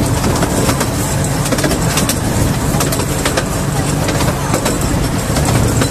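Miniature railway carriage in motion, heard from on board: a steady rumble and rattle with frequent, irregular sharp clicks from the wheels on the track.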